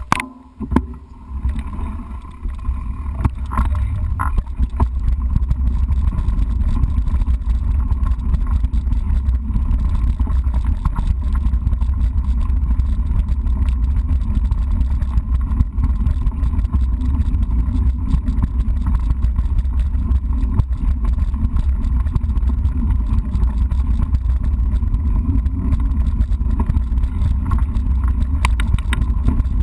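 Mountain bike riding along a dirt and gravel trail, heard from a camera mounted on the bike: a steady low rumble of wind on the microphone and knobby tyre rolling over the ground, with a few brief clicks. It builds over the first few seconds as the bike gets under way, then holds steady.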